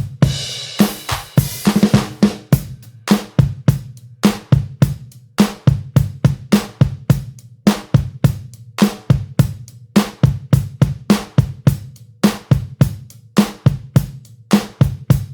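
Background music carried by a drum kit: a steady beat of bass drum, snare and hi-hat at about four hits a second, with a cymbal crash right at the start.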